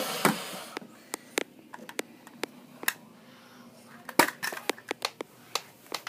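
Handling noise: scattered light clicks and taps as a phone camera is moved about, with the loudest knock about four seconds in and a quick run of taps after it.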